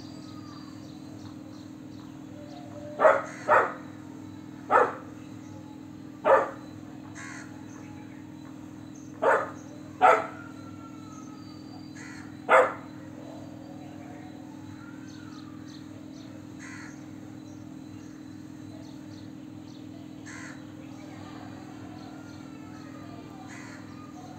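Golden retriever puppy barking: seven single, full barks, each a second or two apart, in a stretch beginning a few seconds in and ending about halfway through. Its bark sounds like an adult dog's. A steady low hum runs underneath, with faint bird chirps.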